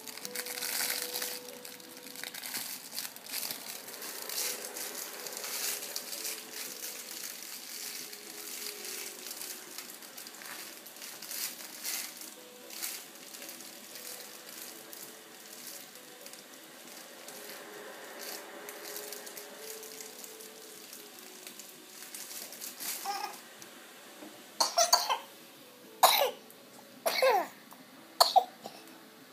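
A sick infant coughing: four short, loud coughs about a second apart near the end, each falling in pitch. Before them, a faint toy tune of stepping notes plays under soft rustling.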